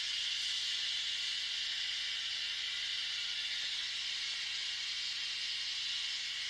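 Oxygen-and-gas micro brazing torch burning with a steady hiss at a neutral flame, heating the compressor's copper discharge and suction pipes to unbraze them.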